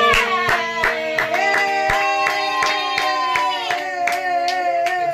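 Several voices singing long, held notes together, with steady hand-clapping about three claps a second: an aarti song sung as the lamp is waved.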